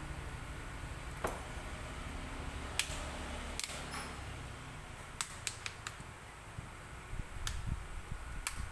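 A series of sharp, irregular clicks and taps over a low steady hum.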